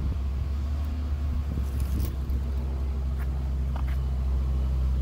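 A steady low machine hum, like a motor running nearby, with a few faint clicks as a tape measure is brought out over a wire bicycle basket.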